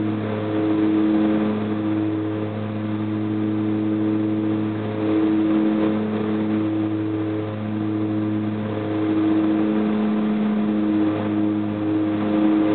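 Fairchild Metro's twin Garrett TPE331 turboprop engines droning steadily inside the cabin during the approach, with a slow, regular swell every two to three seconds.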